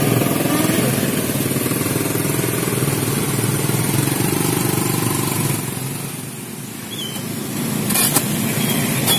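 Motor scooters running past at close range, a steady engine drone that eases off about six seconds in. A couple of short knocks near the end.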